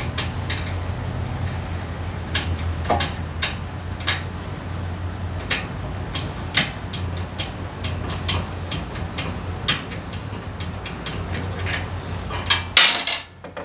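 Scattered sharp metallic clicks and clinks of a 12 mm wrench working a nut loose on a motorcycle's rear wheel, over a steady low hum. The hum stops near the end, and a louder metal clatter follows.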